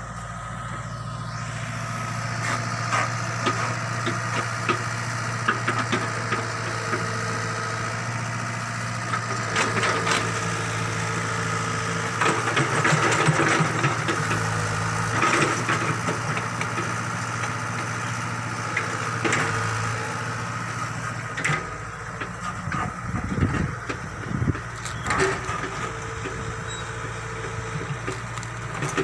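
Excavator's diesel engine running steadily while the machine works, with scattered knocks and clatter from the arm and bucket; it is loudest and busiest about halfway through.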